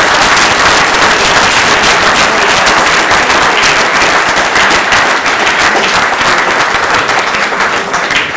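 Audience applauding: dense, steady clapping from a roomful of people, easing slightly near the end.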